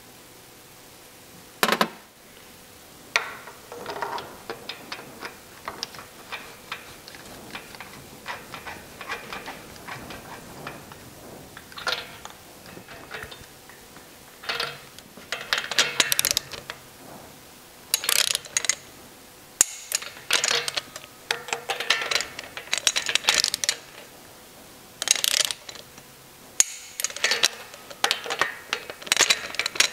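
Hand ratchet clicking in short quick runs, with small metal clinks of tools and parts, as spark plugs are run into the cylinder heads. The clicking is sparse at first and grows denser and louder about halfway through.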